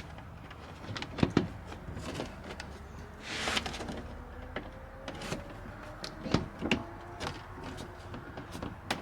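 Scattered knocks and clicks of a car's bumper under tray being handled and fitted under the front of the car. There is a short scraping swish about three and a half seconds in.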